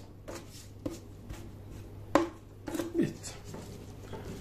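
Handling sounds of a knife and a raw rack of lamb ribs on a wooden cutting board: a few scattered short knocks, the sharpest about two seconds in, over a low steady hum.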